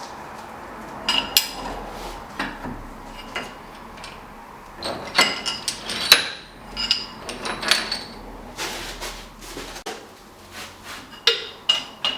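Irregular metallic clinks, knocks and clatter of steel tools and metal parts being handled at a milling machine, some strikes ringing briefly.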